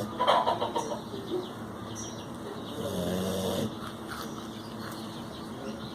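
Snoring: a loud snore just after the start, lasting under a second, and a second, steadier, lower snore about three seconds in.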